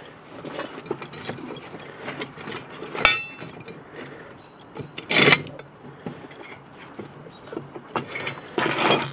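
Steel clamps and metal parts being handled and adjusted on a metal welding jig. A sharp metallic clink with a brief ring comes about three seconds in, and short louder rattling, clattering bursts come about five seconds in and near the end.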